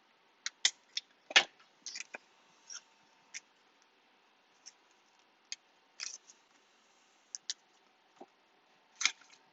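Trading cards being handled and sorted: scattered light clicks and taps, a few sharper ones near the start and near the end.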